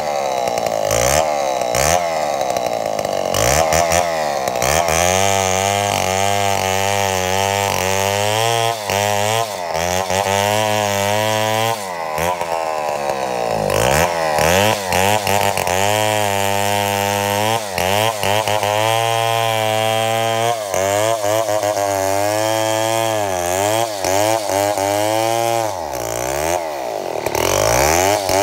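Two-stroke chainsaw engine running unevenly, its speed wavering up and down continually and dropping off sharply several times before picking up again. This choppy, surging running is the fault the owner asks viewers to diagnose.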